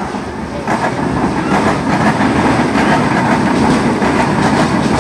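A passing train, a loud steady rumble with a rhythmic clatter of wheels on rails, building about a second in.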